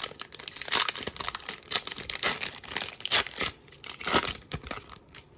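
Foil wrapper of a Donruss Optic football card pack being torn open by hand and crinkled, in a run of irregular rips and rustles that die away near the end.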